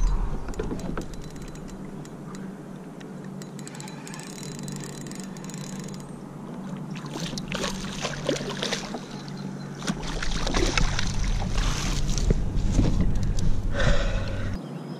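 A hooked speckled trout thrashing and splashing at the water's surface beside a kayak, in irregular spells through the second half, as it is brought to and scooped into a landing net.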